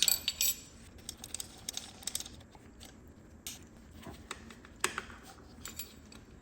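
Irregular light clicks and taps of small metal parts being handled, a bracket and its 6 mm hex bolts, with a close cluster of clicks at the start.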